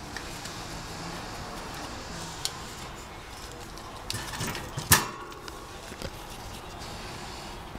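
Handling noises at a wire pet rat cage: light scattered clicks and rustling, with one sharp clack of the cage about five seconds in.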